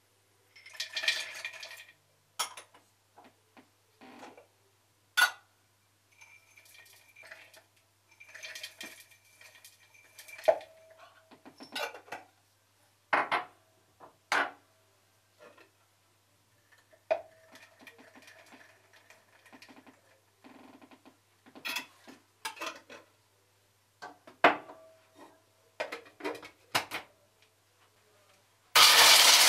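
Kitchen dishes and utensils being handled: scattered clinks, knocks and short clattering stretches, some with a light ringing. Near the end a loud, even rush of noise starts.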